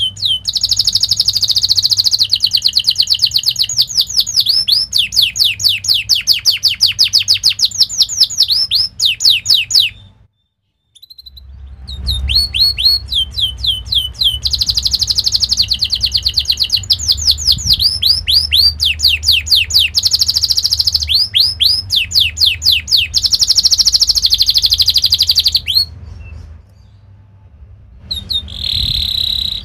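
Domestic canary singing long rapid rolls: fast trains of high chirps, each sweeping down in pitch, at about ten a second. The song breaks off completely for about a second around ten seconds in, and pauses again near the end.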